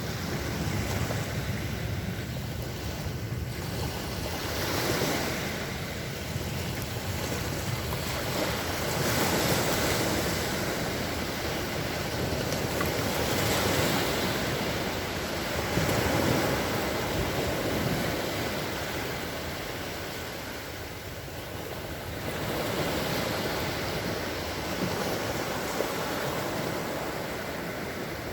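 Small sea waves washing onto the shore, the surf swelling and fading every few seconds, with some wind noise on the microphone.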